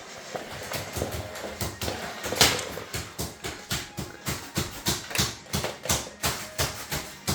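A quick, even run of sharp taps or clicks, about three to four a second.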